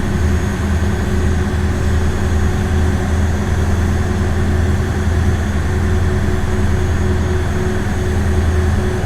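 Ferry boat engine running at a steady speed: a deep, even hum with steady higher tones over it and no change in pace.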